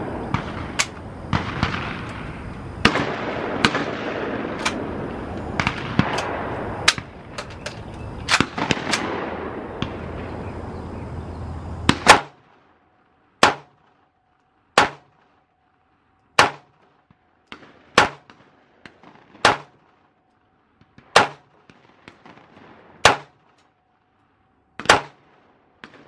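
Gunshots from a 9mm MP5-style pistol fired shot by shot. The first half is a quick string of shots over a steady rushing noise that stops abruptly about halfway. After that come about eight clean, evenly spaced shots, roughly one every one and a half seconds.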